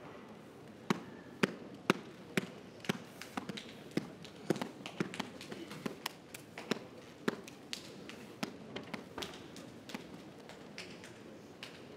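Spectators' scattered hand claps. They start about a second in at about two claps a second, then more people join in irregularly.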